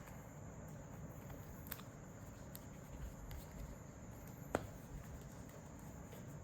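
Trading cards being handled and sorted: a few soft taps and clicks over low room noise, the sharpest about four and a half seconds in.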